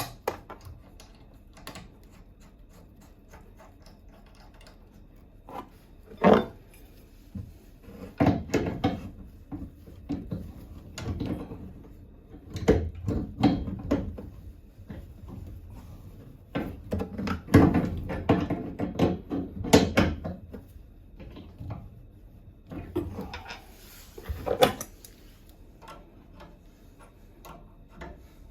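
Irregular knocks, clicks and clatter of a faucet replacement job in progress, as parts and tools are handled, in several bursts with short pauses between.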